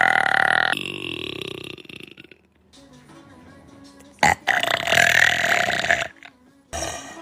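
A woman burping: two long, loud burps. The first fades over about two seconds, and the second comes about four and a half seconds in.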